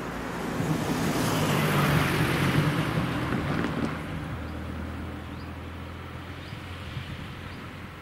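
A car driving over a railway level crossing and past. The tyre and engine noise swells to a peak a couple of seconds in, with a light clatter over the rails, then fades to a low engine hum.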